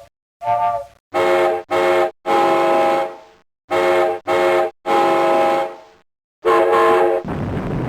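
A multi-tone horn sounding in separate blasts: short, short, long, twice over, then one more blast. Just before the end it gives way to a steady rushing noise.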